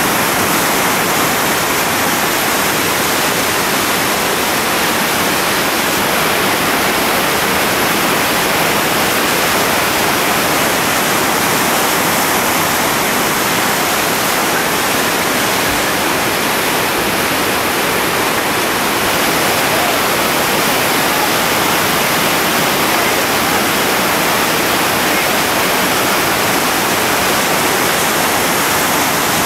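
Whitewater rapid rushing steadily and loudly, the constant churn of a big foaming hole.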